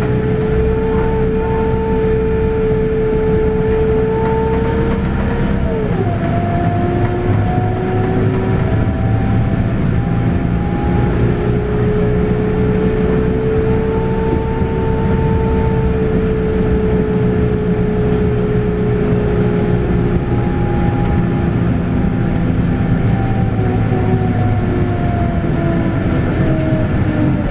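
Scania K280UB bus with its 9.3-litre five-cylinder Scania DC9 diesel and ZF Ecomat six-speed automatic, heard from on board under way. The drivetrain whine climbs slowly and drops sharply about six seconds in as the gearbox shifts up. It then rises again and falls away gradually near the end as the bus slows, over a steady low engine rumble.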